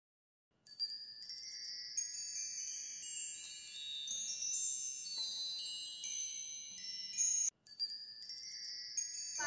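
High, bright chime tones, struck one after another and ringing on in many overlapping notes, like tinkling wind chimes. They start after a brief silence and drop out suddenly for a moment about three-quarters of the way through.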